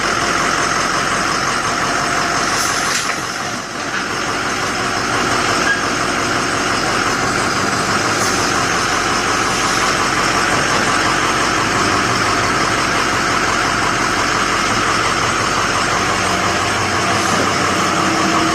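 Truck engine running steadily, at idle or low speed.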